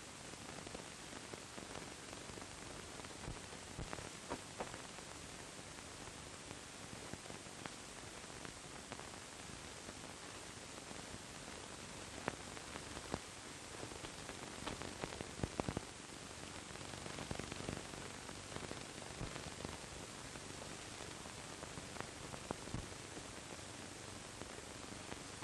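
Steady hiss of an old film soundtrack, with scattered faint clicks and crackles.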